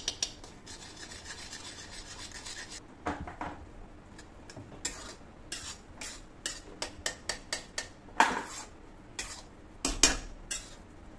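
Metal spoon and spatula scraping and clinking against a metal kadai as cooked instant noodles are stirred, mixing in cheese spread. The scrapes come irregularly, with the loudest clinks about eight and ten seconds in.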